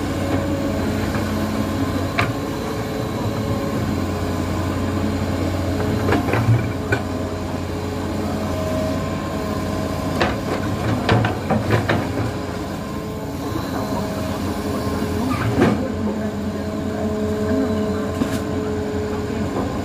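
Hitachi Zaxis 210-5G excavator's diesel engine running under load, with a whine that comes and goes as the boom and bucket are worked in mud. Scattered clanks and knocks sound from the bucket and linkage, in a cluster around the middle and again further on.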